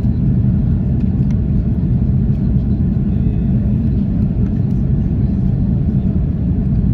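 Airliner cabin noise during a landing: a steady, loud low rumble of engines and rushing air.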